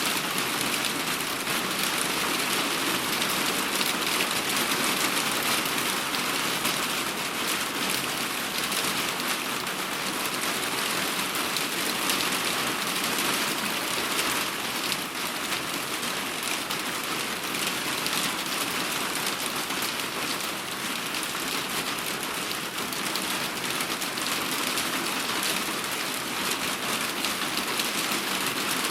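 Heavy rain falling steadily on a surface, an even, continuous hiss of many drops.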